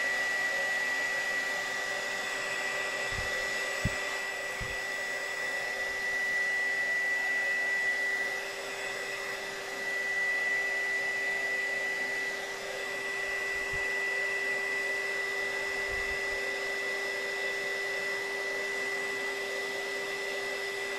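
Electric heat gun running steadily, its blower whooshing with a steady high-pitched whine, as it heats heat-shrink tubing onto a fishing rod handle. A few faint knocks come about three to five seconds in.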